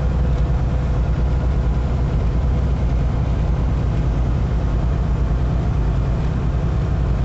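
Steady low drone of a loaded tractor-trailer's diesel engine and tyre noise, heard inside the cab while cruising on the highway.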